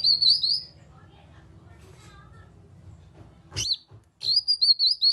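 Cucak kinoi singing: two short, loud phrases of quick warbled whistled notes, with a single sharp up-and-down call between them a little after the middle.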